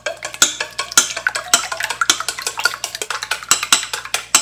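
Wooden chopsticks beating eggs in a stainless steel bowl: rapid, irregular clicking and tapping against the metal.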